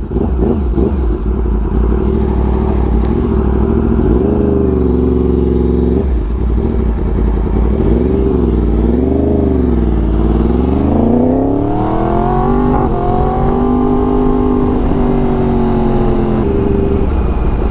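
Loud 2016 Yamaha R1 crossplane inline-four running through a full Arrow exhaust as the bike pulls away and accelerates up through the gears. The engine note climbs and drops back at each shift, wavers up and down with the throttle around the middle, then climbs again and settles near the end.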